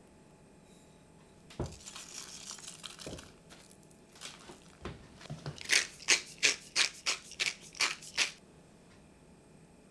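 Hand pepper mill being twisted to grind black pepper: a quick run of sharp crunching clicks, about five a second, for two and a half seconds near the end. Before that come a knock and a brief rustling as vinegar and salt flakes go into a glass jug.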